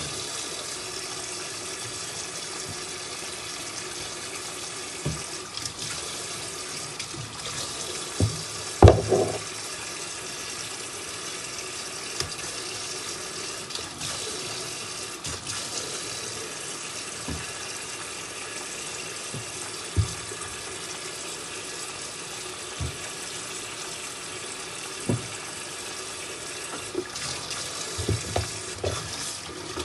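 Kitchen tap running steadily into the sink as potatoes are washed and peeled, with occasional short knocks and clunks, the loudest about nine seconds in.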